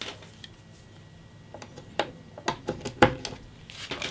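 Light clicks and knocks of a small satellite speaker and its cables being handled and set down on a wooden table: quiet for the first second and a half, then a scatter of short sharp ticks, the loudest about three seconds in.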